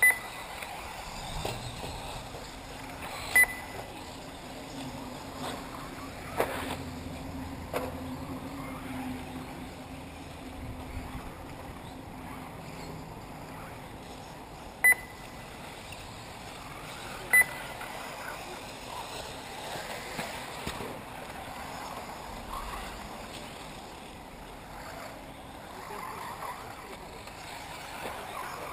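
Steady outdoor noise at an electric RC buggy track, broken by four short, sharp electronic beeps that stand out as the loudest sounds: one at the very start, one about three seconds in, and two a couple of seconds apart in the middle.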